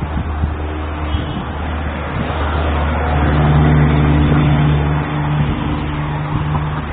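Motor vehicle engine running amid traffic noise. A steady low hum runs throughout, joined about three seconds in by a louder, steady engine note that drops away near the end.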